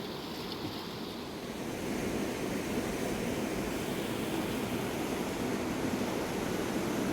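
Fast mountain river rushing, a steady roar of white water that grows louder about two seconds in.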